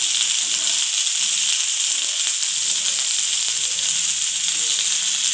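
Stuffed okra shallow-frying in oil on a hot flat griddle pan: a steady sizzling hiss.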